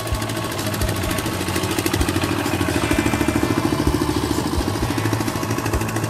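Kubota two-wheel hand tractor's single-cylinder diesel engine chugging steadily under load as it pulls a disc plough through the soil, its fast even beat a little louder in the middle.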